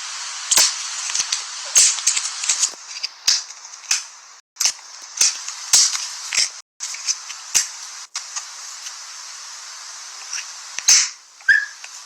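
Fidget toys being clicked and snapped: about fifteen sharp, irregular clicks over a steady hiss, with the hiss cutting out briefly three times.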